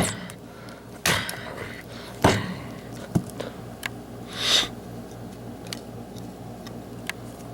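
A few sharp knocks and clicks, one about a second in, one about two seconds in and one about three seconds in, with a short rustle a little later and lighter ticks after it.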